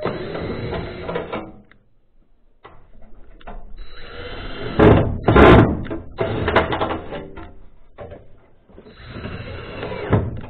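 Thin sheet-steel flashing being handled and fitted against a corrugated steel wall, rattling and clattering irregularly, with the loudest clatter about five seconds in.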